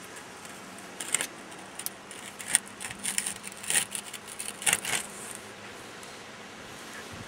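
Stainless steel double-wall insulated chimney pipe clinking and scraping as it is pushed and shifted in a tight hole through a concrete wall, a cluster of sharp metallic clanks between about one and five seconds in.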